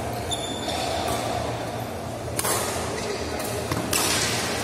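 Badminton rackets striking the shuttlecock during a doubles rally: two sharp hits, about a second and a half apart, over the murmur of voices in a large hall.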